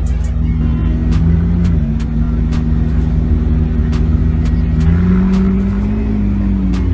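A car engine running at a steady pitch, rising in a light rev about five seconds in and then settling back.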